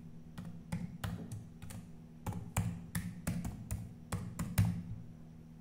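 Typing on a computer keyboard: quick, irregular key clicks that stop near the end.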